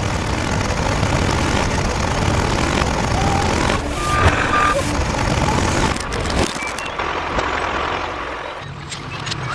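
Steady vehicle-engine noise with a low rumble, with a few short high beeps about four seconds in; the sound changes abruptly about two-thirds of the way through.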